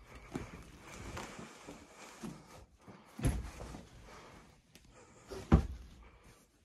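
Fold-out sofa bed being pulled open: the metal frame and mattress unfold with scraping and rustling, and two thumps land about three seconds in and, louder, near the end.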